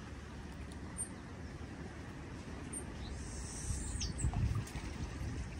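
Low wind rumble on the microphone at the water's edge, swelling about four seconds in, with a few brief high bird chirps and a falling high call in the middle.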